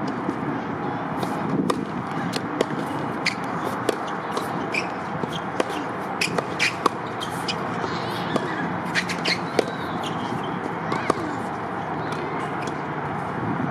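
Tennis balls being struck by rackets and bouncing on a hard court: scattered sharp pops and knocks at an irregular pace over a steady background hum.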